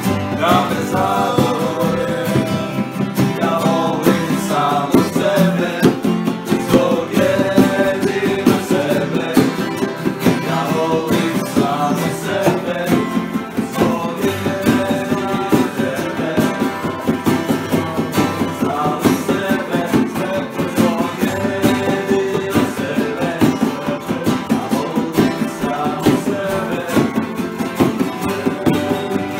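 Live unplugged folk music: acoustic guitars strummed and picked together with a smaller plucked string instrument and hand-played bongos, with voices singing along.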